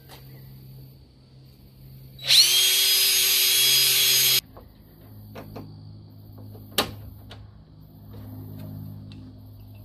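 Cordless drill spinning up and running at a steady speed for about two seconds as it drills into the Jeep's fender panel, then stopping abruptly. A single sharp click follows a couple of seconds later.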